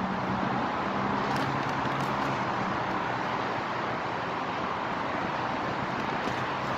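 Steady engine noise from the mobile crane running during the lift, with a low hum that fades out about three seconds in.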